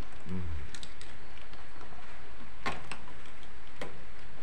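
A few sharp clicks and taps of a screwdriver and the plastic deflection yoke on the neck of an old Sharp CRT television's picture tube, as the burnt yoke is loosened and worked off. The loudest click comes a little under three seconds in.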